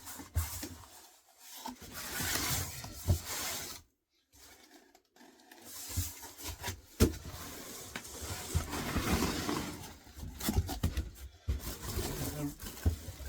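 Packaging being handled and pulled apart as a bench grinder is unboxed: irregular rustling and scraping with scattered knocks and a sharp click about seven seconds in, and a brief silent gap about four seconds in.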